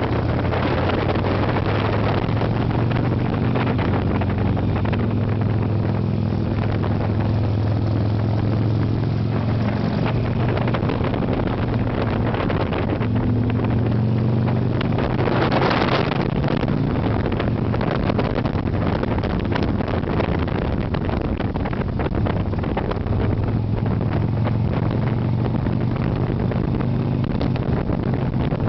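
Harley-Davidson Sportster 883's air-cooled V-twin engine running under way, heard from the rider's seat with wind buffeting the microphone. The engine note steps up and down a few times with speed through the curves, and the wind rush swells about halfway through.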